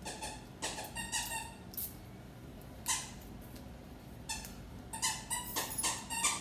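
A blue heeler puppy chewing his squeaky toy fox: short, high squeaks in quick clusters, a few near the start, one about three seconds in, and a fast run near the end.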